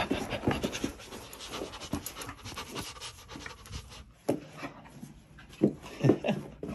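A puppy panting and scuffling while it plays and rolls on carpet, with a few louder short sounds in the second half.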